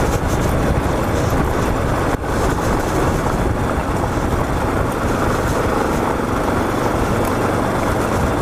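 Motorcycle engine running steadily on the move, with wind rushing over the microphone and tyres rolling on a gravel road.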